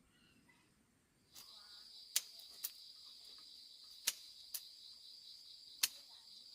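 Insects, crickets or similar, trilling steadily in a high, finely pulsing chorus that comes in about a second and a half in. Five sharp clicks stand out over it.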